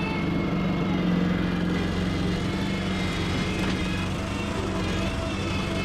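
Terramite backhoe's engine running at a steady speed.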